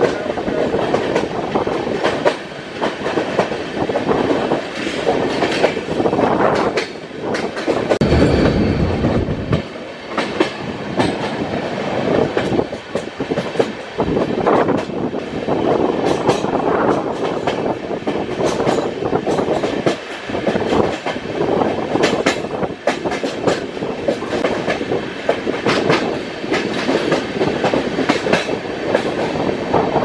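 Passenger train coaches running along the rails, heard from aboard: a steady rush of wheels on track with irregular clickety-clack of rail joints. A stronger low rumble comes for a second or so about eight seconds in.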